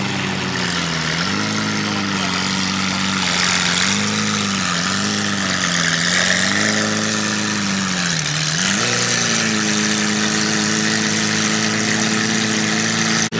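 A sports car engine idling and being given a series of short, light throttle blips, its pitch rising and falling several times. About nine seconds in it settles to a steady idle.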